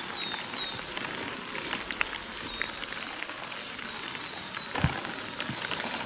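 Quiet river ambience: a soft, steady hiss of water with small drips and ticks, and a few faint short bird chirps. A single dull knock sounds just before five seconds in.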